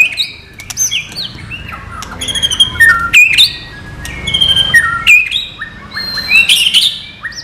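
White-rumped shama (murai batu) singing a fast, varied song of clear whistles, quick rising and falling notes and chirps, one phrase after another without a break.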